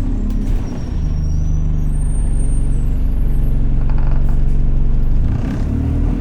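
Enviro200 single-deck bus engine running under way, heard from inside the bus: a loud steady low drone that shifts pitch near the end, with a faint high whistle above it.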